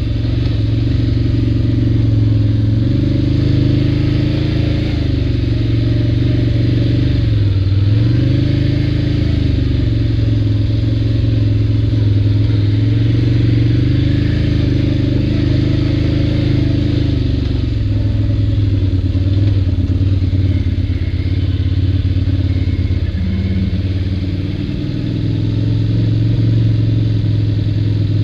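ATV engine running under changing throttle while riding a dirt trail, its note rising and falling. It eases off briefly about twenty-five seconds in, then picks up again.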